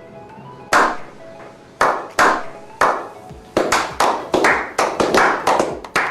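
Background music with loud, sharp clap-like hits, a few spaced out at first, then coming faster, about three a second through the second half.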